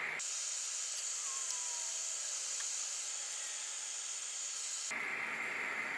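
Steady hiss of a small forge's burner, starting and stopping abruptly.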